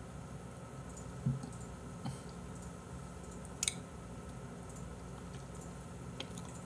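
Quiet room with a steady low hum and three short faint clicks, about one, two and three and a half seconds in.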